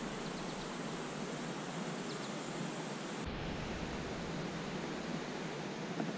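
Steady, even hiss of outdoor background noise on the river, with no distinct events; the low rumble rises slightly about three seconds in.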